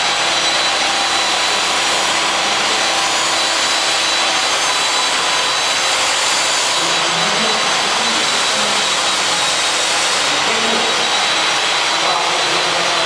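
A steady, loud hiss with a thin high whine running through it, unchanged in level throughout.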